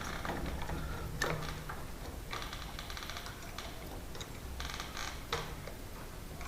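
Hand work on a mortice lock: a single sharp knock about a second in, then two short runs of rapid, fine metallic clicking.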